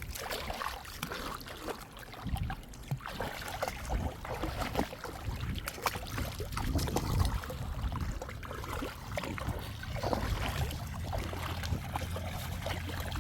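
Water splashing and lapping, with wind rumbling on the microphone.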